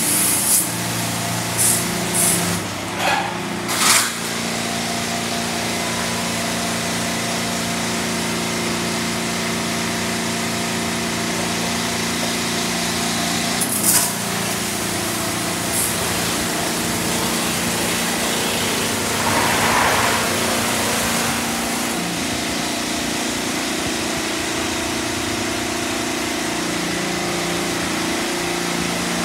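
PDQ ProTouch Tandem friction car wash running: a steady motor hum from the gantry and its spinning foam brushes over a haze of spraying water. A few short bursts of hiss come in the first four seconds, with another at about fourteen seconds.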